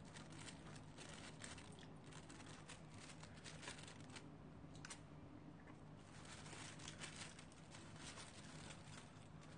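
Faint rustling and small scattered clicks of disposable wooden chopsticks picking at food in plastic wrapping, over a low steady hum.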